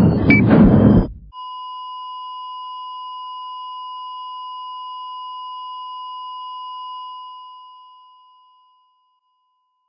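Loud music cuts off about a second in, followed by a single steady, high electronic beep tone that holds for about six seconds and then fades away.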